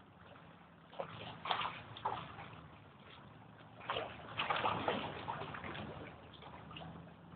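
Bay waves sloshing and gurgling at the San Francisco Wave Organ, in irregular bursts about a second in and again around four seconds in, over a low steady hum.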